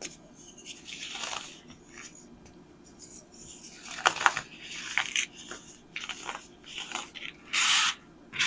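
Compressed baking soda being crushed, crunching and crumbling in irregular bursts with sharp crackles, the loudest and longest crunch near the end.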